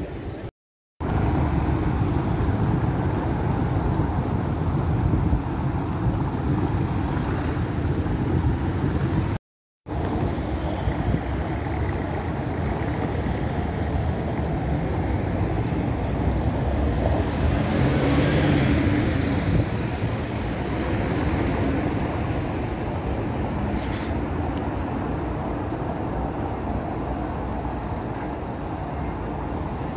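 Street traffic dominated by city bus engines: a steady low rumble that swells about eighteen seconds in as a vehicle passes close. The sound drops out completely for a moment twice, early on and about ten seconds in.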